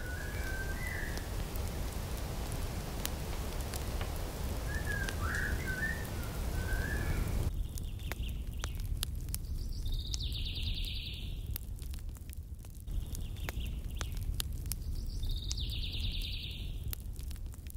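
Outdoor ambience: a steady low rumble with short bird chirps, a few about a second in and again around five to seven seconds in. After the background changes abruptly about seven seconds in, a higher bird call sounds twice, about five seconds apart.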